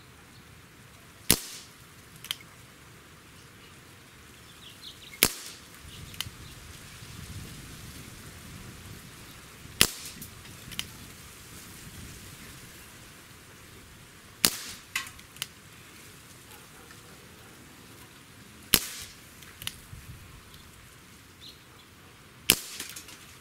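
Dan Wesson 715 CO2 pellet revolver with a 4-inch barrel firing six .177 shots, one every four to five seconds. Each shot is a sharp crack, and most are followed about a second later by a fainter click.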